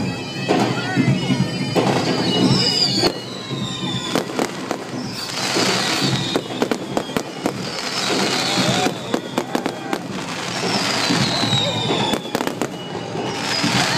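Fireworks display: repeated bangs and dense crackling, with high whistles that fall in pitch every two to three seconds.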